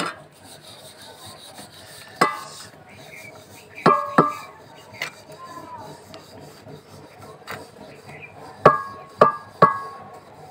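Wooden rolling pin rolling naan dough on a stone rolling board, a soft rubbing broken by sharp knocks that ring briefly: one about two seconds in, a pair around four seconds, and three in quick succession near the end.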